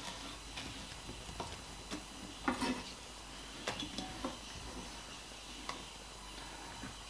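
Kitchen knife on a cutting board while slicing a red onion: a handful of scattered light taps and clicks, the loudest about two and a half seconds in.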